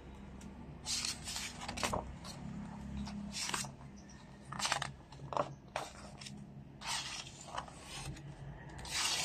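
Pages of a large glossy picture book being turned one after another, each flip a short papery swish, about one a second.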